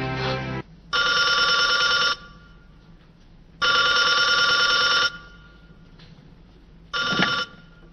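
Telephone ringing: three rings, the first two about a second and a half each, the third cut short after about half a second.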